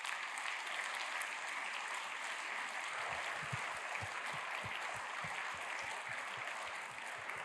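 A large audience applauding steadily in a big concert hall, many hands clapping at once. Low thuds join in from about three seconds in.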